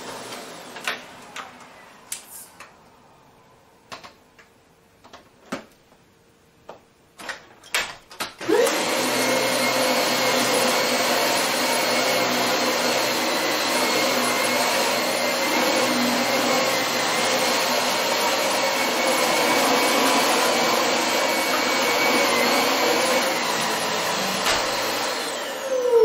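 A few scattered clicks and knocks, then about a third of the way in a Dyson Ball upright vacuum cleaner starts with a quick rising whine. It runs steadily with a high motor whine while sucking shredded paper off carpet, getting louder briefly at the very end.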